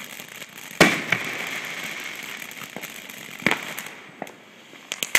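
A Fat Cat ground fountain firework spraying sparks with a steady hissing crackle. Two sharp pops come about a second in and again at about three and a half seconds. The hiss dies down near the end.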